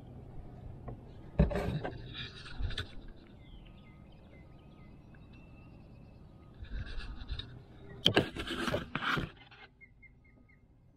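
Knocks and scrapes of handling close to the microphone as things are shifted about in the canoe, in three bursts: about a second and a half in, around seven seconds, and between eight and nine and a half seconds in. A few faint short high chirps come near the end.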